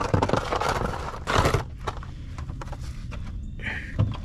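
Hand-tool and car-part work sounds: two short scraping rustles in the first second and a half, then scattered light clicks and knocks, with a dull thump near the end.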